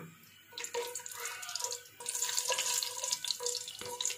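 Whole green cardamom pods sizzling in hot ghee, a crackling fizz that grows much louder about two seconds in as the fat bubbles up around them.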